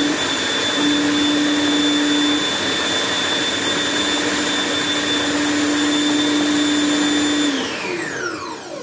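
Kenwood food processor motor running steadily, puréeing thick pea and cannellini bean hummus. About seven and a half seconds in it is switched off and the whine falls away as the blade spins down.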